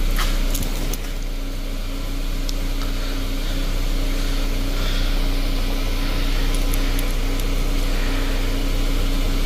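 A steady low mechanical hum, like a motor or engine running, holding an even pitch throughout, with a few faint clicks in the first second.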